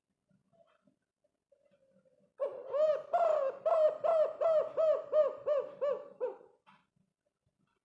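Spotted dove calling: a quick run of about a dozen short, arched coos, about three a second, starting a couple of seconds in and stopping about a second before the end.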